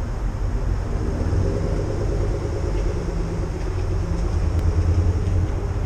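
Steady low rumble, like a motor vehicle's engine or passing traffic.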